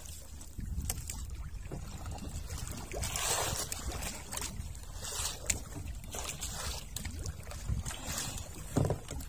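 Water sloshing against a small wooden boat, with a steady low wind rumble on the microphone. Scattered short clicks and rustles come from a caught lobster being handled on board.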